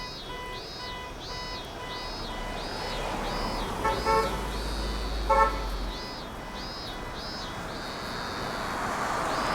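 Two short car horn toots, about four seconds in and again a second later, over street traffic, with a high pulsing call repeating about twice a second throughout.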